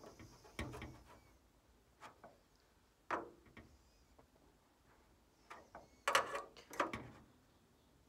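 Scattered light clicks and knocks of a steel ruler being shifted and pressed against thin aluminium elevator skin, checking the trailing-edge bend, with a louder cluster of knocks a little past halfway.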